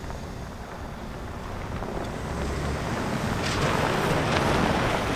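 Wind rushing over the microphone above the low rumble of the 2022 Toyota Tundra pickup off-roading; the rushing grows louder about halfway through.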